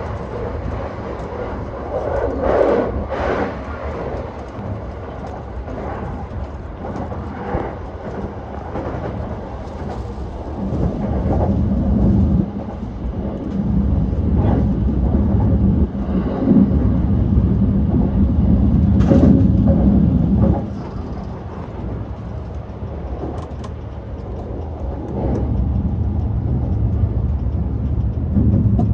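JR E235-1000 series electric train running, heard from on board: a continuous low rumble of wheels on rail that swells and eases, with a few sharp clacks over rail joints.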